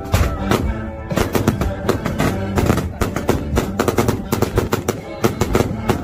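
Fireworks going off in rapid strings of sharp crackling bangs, over background music.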